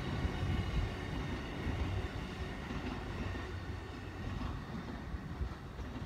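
JR E235 series electric train running past on the rails. Its low rumble fades steadily as the last car goes by and the train pulls away.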